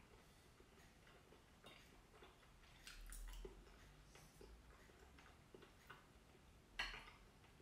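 Faint clicks of a fork against a plate during eating, with one sharper clink near the end; otherwise near silence.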